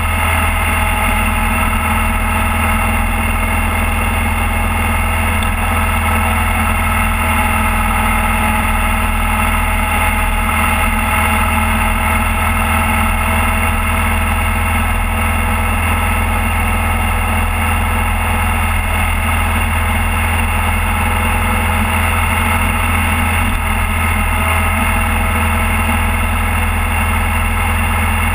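Motorcycle engine running steadily while cruising at highway speed, with an even, unchanging drone.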